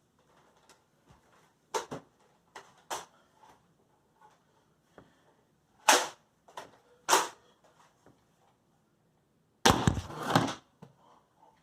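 Nerf blaster firing foam darts: a string of sharp single snaps a second or so apart, then a longer, louder noisy stretch about ten seconds in.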